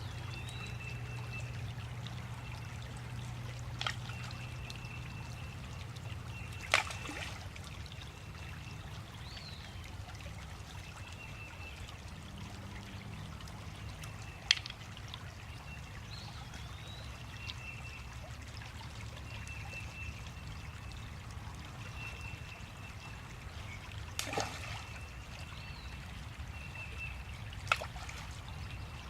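Park ambience: a steady low rumble under a short, high chirping note that repeats every couple of seconds, with a few sharp clicks scattered through.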